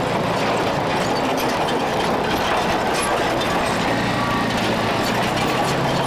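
Crawler bulldozer's diesel engine running steadily under load, with a light clatter from its steel tracks.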